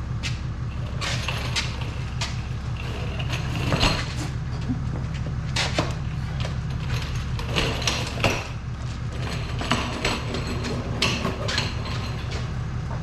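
Vehicle engine running steadily, with many short knocks, clicks and clunks over it.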